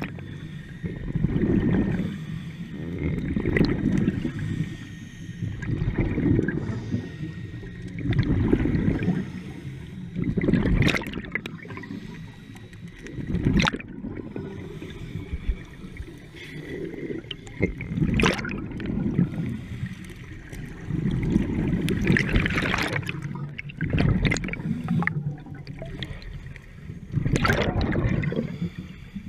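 Scuba breathing heard underwater: regulator breaths and bursts of exhaled bubbles gurgling, swelling and fading every couple of seconds, with a few sharp clicks.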